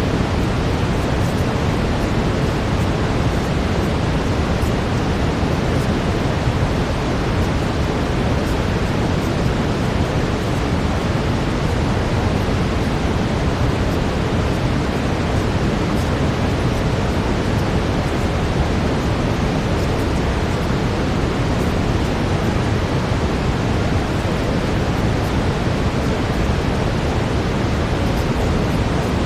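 Steady brown noise: an even, deep hiss with most of its weight in the bass and no change in level.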